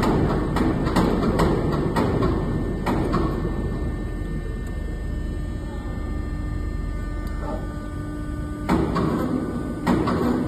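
Hydraulic press brake running: a steady machine hum with sharp regular clicks about twice a second for the first few seconds. It then settles into a steadier hum, and two louder bursts of sound start near the end.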